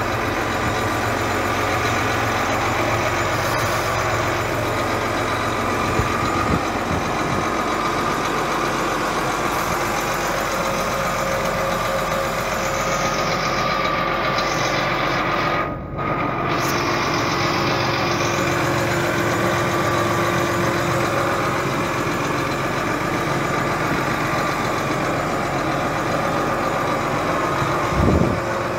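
John Deere tractor's diesel engine running steadily, heard from inside the cab, with a steady whine over the engine note. A brief knock sounds near the end.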